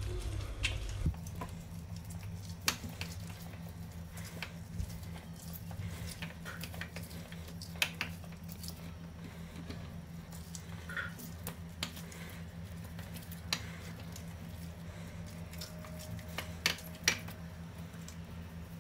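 Lemon halves twisted by hand on a plastic manual citrus reamer over its jug: soft wet squishing and rubbing, with a few sharp plastic clicks and knocks. A steady low hum runs underneath from about a second in.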